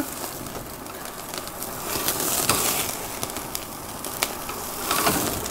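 Duck breast searing on the hot grate of an infrared-burner grill: a steady sizzle with scattered sharp crackling pops, swelling a little about two seconds in.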